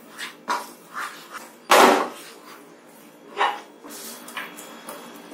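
A wooden spatula knocking and scraping against a nonstick pan as thick gram-flour and ghee batter is stirred, then scraped out into a tin. There are about five sharp knocks, the loudest one about two seconds in.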